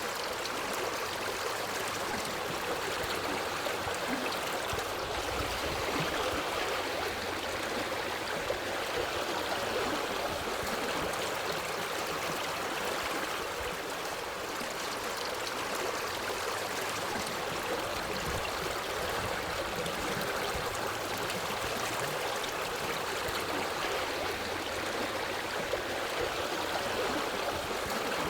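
Forest stream flowing steadily over rocks, a continuous rushing and gurgling of water.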